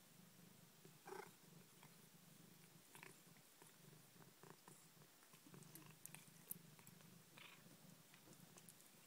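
Faint, steady purring of a ragdoll mother cat as her kittens nurse, with a few brief higher squeaks.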